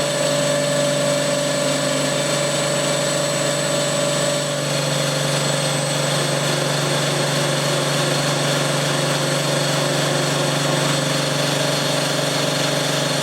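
Ingot grinding machine running as its grinding wheel starts another stroke along the ingot from one side. It makes a steady machine hum with a thin high whine, and the mix of tones shifts slightly about four seconds in.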